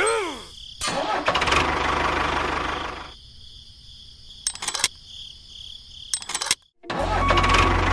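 Engine-like mechanical noise with scattered clicks, then a motor starting up with a loud steady low hum about seven seconds in.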